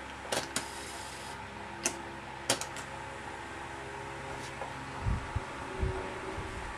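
Aiwa AD-F770 cassette deck winding a tape at speed in music search: a steady whir from the tape transport and spinning reels, driven by newly replaced belts. A few sharp clicks come in the first three seconds, and a couple of low thumps come near the end.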